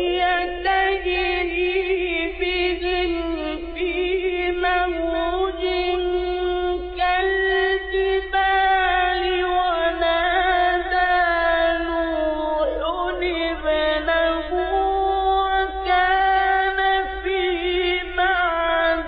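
A man's voice reciting the Quran in a high, melodic, ornamented style, drawing out one long phrase with sustained, wavering notes, over a steady low hum.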